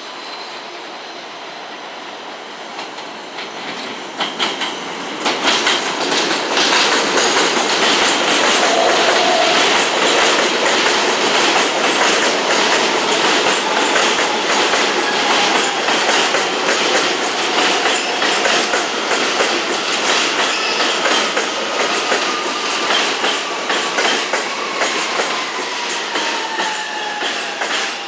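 Stainless-steel subway train running through the elevated station, getting loud about five seconds in, its wheels clattering fast over the rail joints. A thin whine falls slowly in pitch over the second half.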